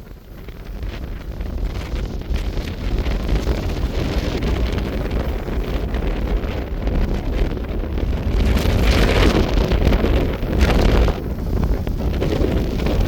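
Strong wind buffeting the microphone: a heavy, patternless low rumble that builds over the first few seconds and comes in gusts, strongest about two-thirds of the way in.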